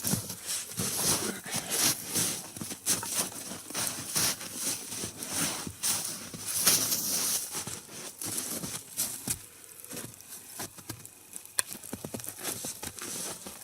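Wood fire burning down to coals, crackling and snapping in dense irregular clicks, with soft knocks and rustles, thinning out about two thirds of the way in.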